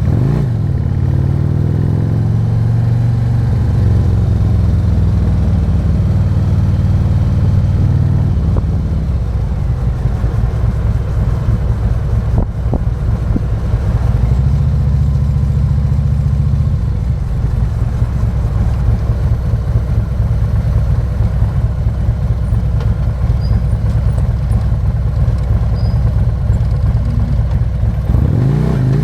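Harley-Davidson Road King's 117-cubic-inch V-twin running under way, with road noise. The engine note settles lower about a third of the way through and rises near the end as it accelerates.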